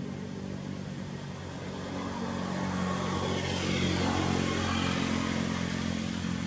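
A motor engine running steadily, getting louder from about two seconds in to a peak around four seconds.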